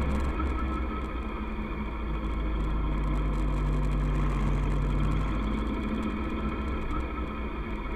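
Kawasaki ER-6f's parallel-twin engine running steadily while riding, a little louder with a steadier note from about two and a half to five seconds in.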